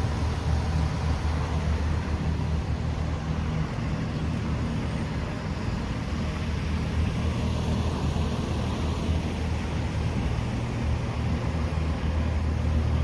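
Steady low rumble of a motor vehicle, an engine running with road noise.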